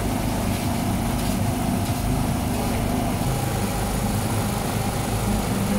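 A small engine running steadily at idle, a constant low hum.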